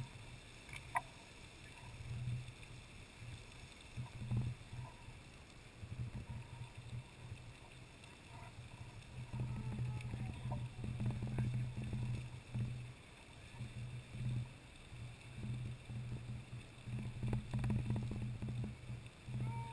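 Lady Knox Geyser erupting: a muffled low rush from the jet of water and steam that swells and fades irregularly, with a sharp click about a second in.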